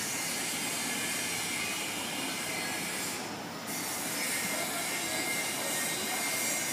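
Heat gun blowing hot air over freshly printed high-density plastisol ink to cure and puff it: a steady rushing noise that thins briefly a little past the middle.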